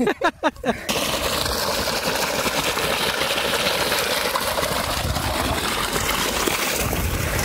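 Irrigation water gushing steadily into a rice paddy, an even rushing noise that starts about a second in.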